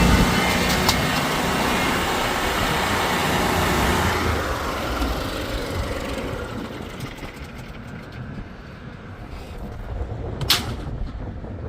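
A lawn mower's engine noise dies away: the steady engine note drops out at the start, and the remaining mechanical running noise fades over the next several seconds. A single sharp knock sounds near the end.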